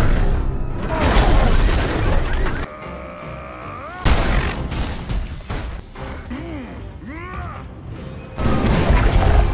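Action-movie soundtrack: dramatic music under crashes and a low rumble, then a sudden hit about four seconds in. Swooping sound effects follow over the music, and it swells loud again near the end.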